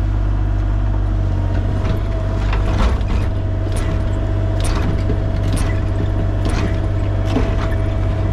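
Excavator engine running steadily with a constant whine, while sharp knocks about once a second come from the digging.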